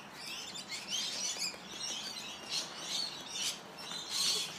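Small birds chirping, a scatter of short, high chirps and twitters coming every half second or so.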